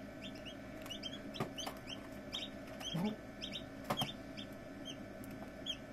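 Newly hatched chicken chicks peeping: a run of short, high chirps, each sliding down in pitch, with a few sharp taps among them, over a steady low hum.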